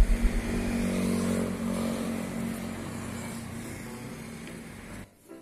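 A motor vehicle's engine running past on the street, its steady hum slowly fading away, cut off abruptly near the end.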